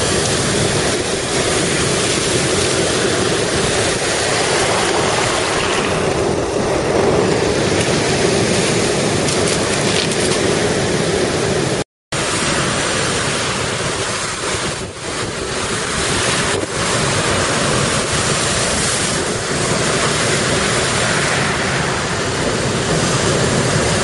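Lake Superior storm waves breaking and crashing in heavy surf, with strong wind on the microphone. The sound cuts out for a moment about halfway through.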